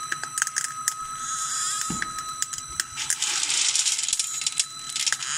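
Hard, dry baobab seeds clicking and rattling against each other as a hand scoops them and lets them pour back into the pile, thickening into a dense rattle about three seconds in. A steady high whine runs underneath.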